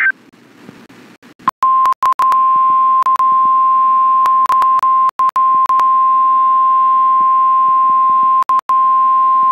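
Emergency weather alert tone: the single steady 1050 Hz weather-radio warning alarm that comes ahead of a tornado warning broadcast. It begins about a second and a half in and cuts out briefly several times.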